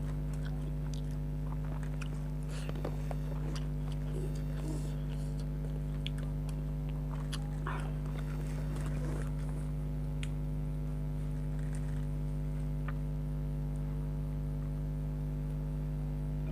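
Close-miked chewing and biting of food, with small clicks and smacks scattered throughout, over a steady electrical hum.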